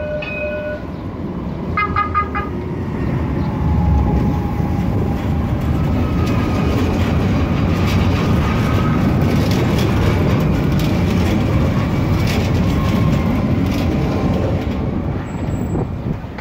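Alstom Citadis trams passing close by on the tracks on both sides: a steady low rumble of wheels on rails that builds after a few seconds, with a quick run of warning-bell rings about two seconds in.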